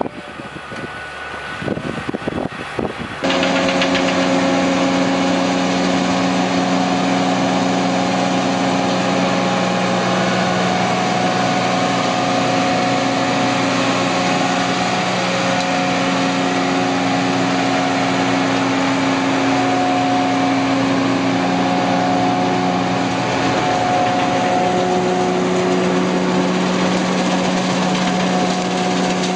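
Self-propelled straddle harvester working over a row of olive trees, its engine and machinery running loud and steady with a constant hum. This sound starts abruptly about three seconds in, after a quieter, rougher stretch of field machinery noise.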